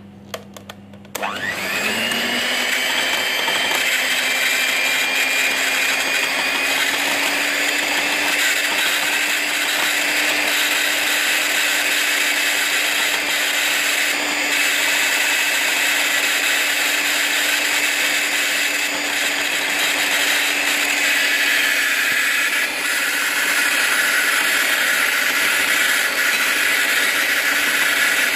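Morphy Richards 300 W electric hand mixer whipping cream in a glass bowl: a few clicks, then the motor starts about a second in, its whine rising quickly and settling into a steady run as the beaters work the cream toward peaks.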